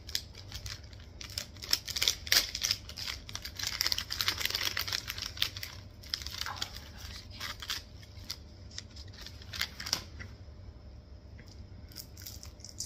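Dense crisp crackling and clicking from a seaweed snack and its packet being handled and eaten, thinning out after about ten seconds.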